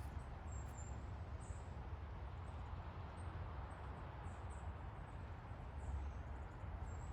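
Birds chirping, short high chirps about once a second, over a steady low rumble.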